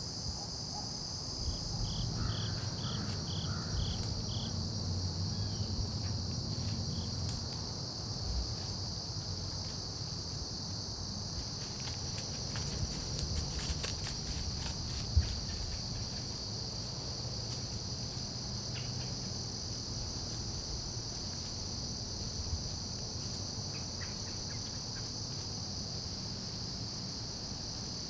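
Steady high-pitched buzzing chorus of insects in woodland. A short run of about six quick high chirps comes about two seconds in, and a single sharp click comes about fifteen seconds in.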